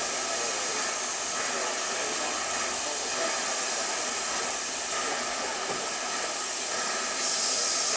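Steam locomotive hissing steam in a steady, high hiss that grows louder near the end.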